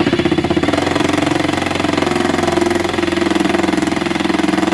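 Impact gun hammering steadily at a rapid rate, driving a bolt through a homemade rivnut tool to draw the rivnut's threaded end up toward its collar and set it in the hole.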